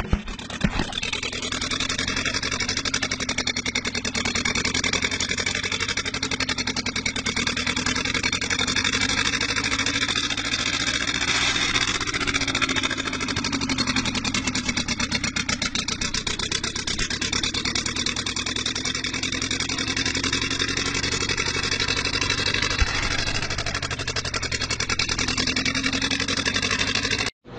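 Old tractor engine running steadily with a rapid, even firing beat, its speed wavering slightly at times.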